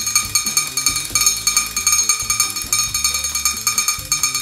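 Vintage wind-up bunny drummer toy beating its toy drum with its sticks: a fast, even run of ringing taps, many a second, driven by its clockwork.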